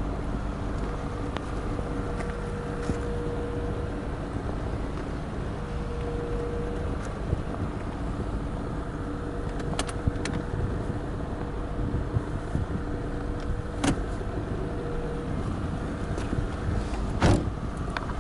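Toyota Soarer GT Twin Turbo L's engine idling steadily, with a few sharp clicks and a louder knock near the end.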